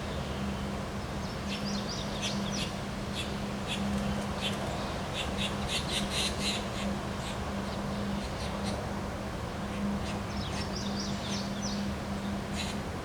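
Small birds chirping in two spells of short, quick calls, over a steady low hum and a constant low rumbling noise.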